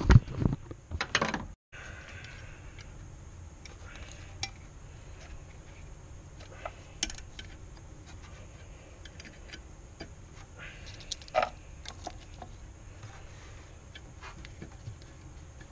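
Scattered light metallic clicks and clinks of a hand tool and engine parts being handled in a car's engine bay, over a faint low hum. A burst of louder handling noise comes in the first second and a half.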